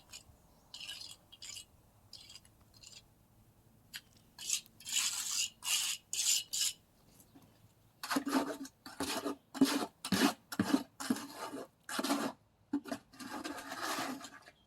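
Trowel scraping thin resurfacing cement over a concrete slab. A few faint scrapes are followed by longer strokes, then quick repeated strokes about twice a second from about the middle on.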